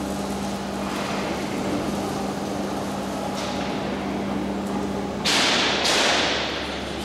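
Factory hall background: a steady machinery hum with a low drone. About five seconds in, two loud, sudden noises come about half a second apart, each dying away in the hall's echo.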